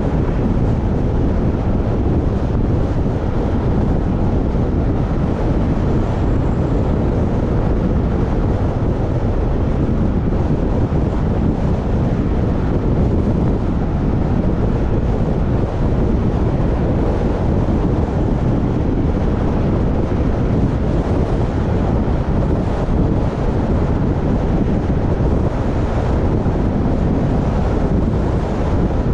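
Wind buffeting the microphone while travelling along a road: a steady, dense low rumble with no breaks.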